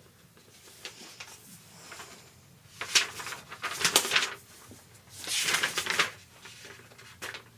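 Paper rustling as pages of notes are leafed through, in a few short bursts about three, four and five-and-a-half seconds in, with a last brief rustle near the end.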